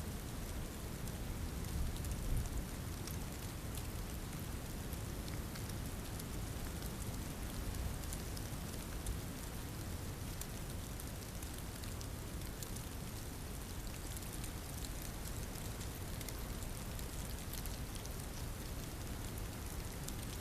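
Steady rain ambience: a dense, even patter with many fine drop ticks over a low rumble.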